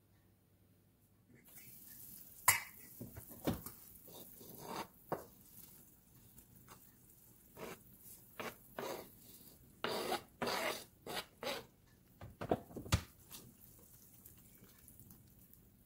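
Irregular knocks and short scrapes on a stainless steel soup pot as chopped kohlrabi leaves are pushed off a plastic cutting board into it and stirred in with a wooden spoon, over a faint steady hiss. The knocks come thickest and loudest in the second half.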